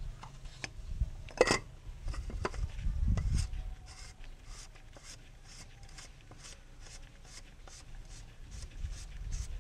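Oil filter housing cap on a BMW E36 M43 engine being screwed down by a gloved hand: soft rubbing and handling noises, with a sharp click about one and a half seconds in. A faint, steady ticking runs underneath, about two or three ticks a second.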